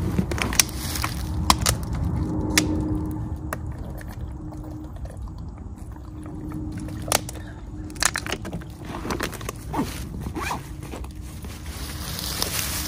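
Rustling with scattered sharp clicks and snaps, about six of them, over a low steady rumble.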